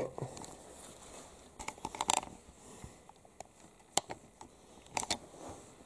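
Scattered light clicks and short scrapes of a steel file and a fire shovel clamped in a tool vise being handled: a cluster about two seconds in, a single sharp click near four seconds, and a pair about five seconds in.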